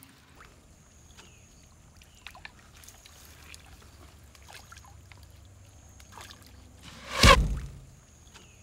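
Faint ambience with a thin high whine that comes and goes and scattered soft clicks, then a short loud whoosh about seven seconds in.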